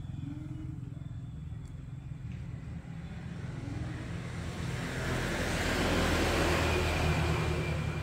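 A small vehicle engine running with a steady low rumble, joined by a rushing noise that swells to a peak about six to seven seconds in and then eases.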